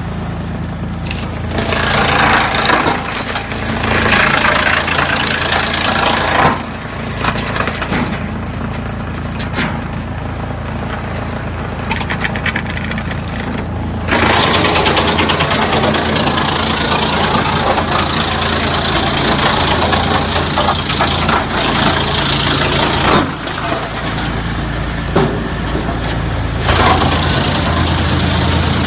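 Drum wood chipper running with a steady low hum while logs are chipped, the chipping heard as long stretches of loud, dense rasping noise with occasional sharp cracks. The chipping starts and stops, with the longest stretch in the second half.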